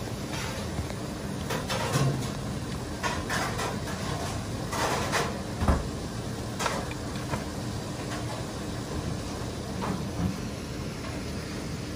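Light clicks and knocks of wooden chopsticks against a metal plate as slices of roast pork are arranged, with other scattered kitchen knocks over a steady low hum.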